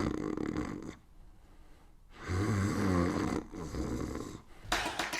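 A person snoring: a rasping snore at the start, then another longer snore cycle from about two seconds in. A short rush of noise comes near the end.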